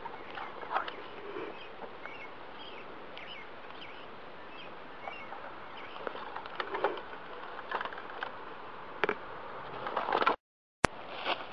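Outdoor ambience: a steady hiss with faint, short bird chirps and scattered rustles and clicks of movement on dry ground. Near the end the sound cuts out to silence for about half a second, broken by a single sharp click.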